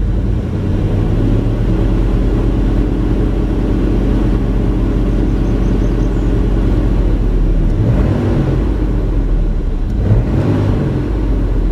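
1996 Chevy Tahoe's V8 engine idling steadily, with small swells in the note about 8 and 10 seconds in. The owner calls this the way it normally sounds, though he suspects a misfire remains.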